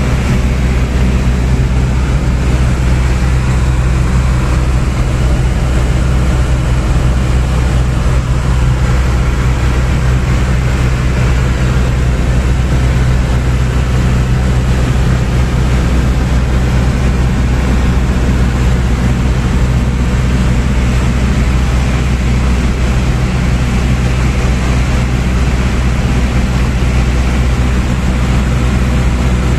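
Single-engine light aircraft's engine and propeller running steadily in flight, heard from inside the cabin as a deep, even drone that does not change.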